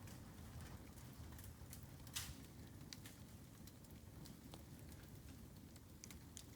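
Bamboo burning in an open fire: faint scattered crackles and ticks, with one sharper pop about two seconds in, over a low steady rumble.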